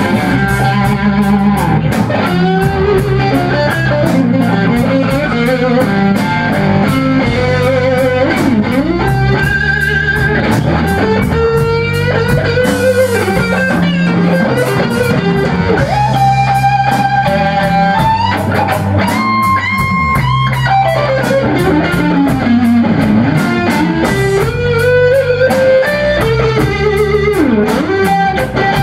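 Blues band playing an instrumental passage at full volume. A lead electric guitar plays bending melodic lines over bass guitar and a drum kit with cymbals.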